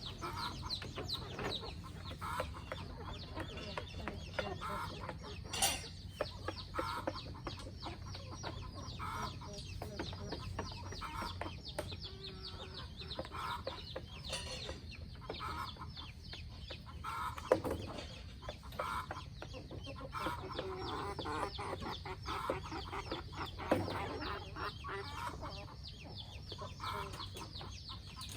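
A flock of chickens clucking continuously, with a few sharp knocks about six, eighteen and twenty-four seconds in.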